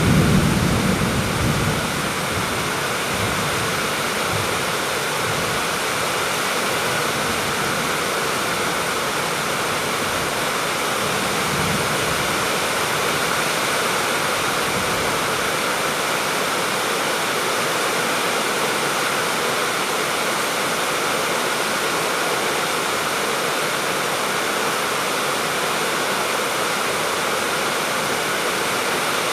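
Steady, even rain noise. A low rumble of thunder fades away in the first couple of seconds, and a fainter one comes about eleven seconds in.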